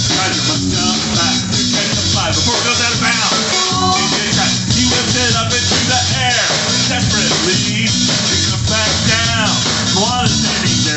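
Live rock band playing loud and steady, with guitar and a drum kit with cymbals.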